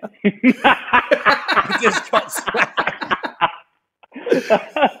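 Men laughing hard, in quick repeated bursts, with a short break a little before the end.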